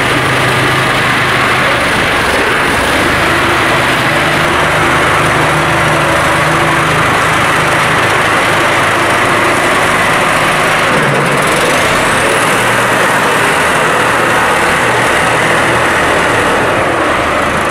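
Farm tractor's diesel engine running steadily under load while it moves, its note shifting about eleven seconds in.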